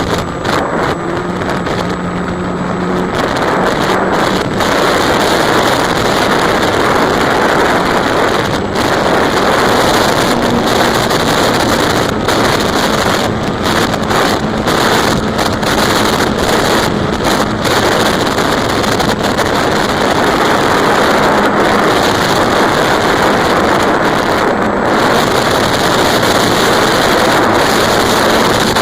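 Wind rushing over the onboard camera's microphone on a flying E-flite Apprentice RC plane, with the faint steady drone of its electric motor and propeller underneath.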